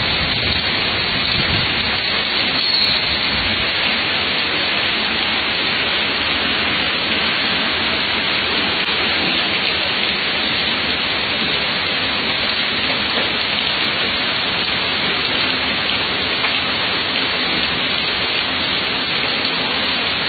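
Heavy rain pouring onto a wet, puddled street: a steady, even hiss of downpour.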